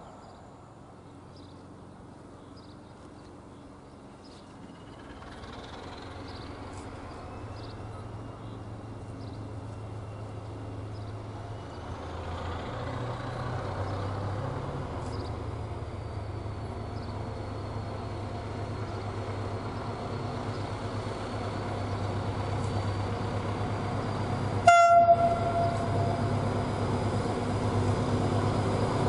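Diesel locomotive approaching with a low engine hum that grows steadily louder, then a short horn blast near the end.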